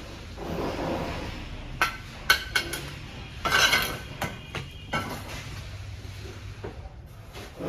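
Metal masonry tools and bricks clinking and knocking during bricklaying of a partition wall: a few sharp clinks about two seconds in, then a louder scraping rush, then smaller knocks.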